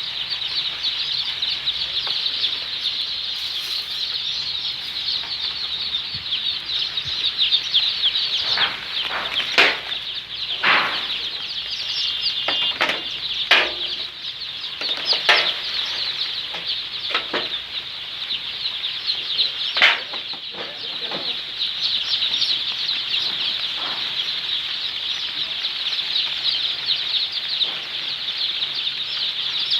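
A flock of Sonali chicken chicks peeping continuously in a dense high chorus, with a dozen louder single calls standing out in the middle.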